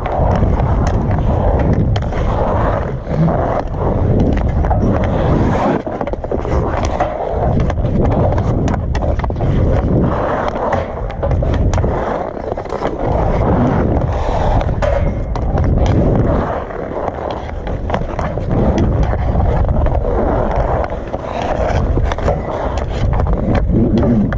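Ice hockey skates carving and scraping on outdoor rink ice, with frequent sharp clicks of a hockey stick striking pucks.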